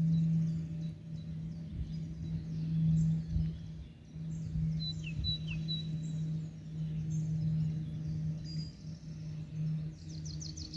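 Songbirds chirping and calling over a steady low hum, with two short falling notes about halfway through and a quick run of chirps near the end.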